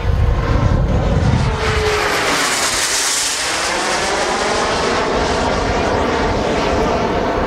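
JetCat P160 turbine of a C-ARF Lightning model jet flying past: a loud, steady rushing jet whine. The hiss grows brightest about three seconds in as the jet passes, then eases off slightly.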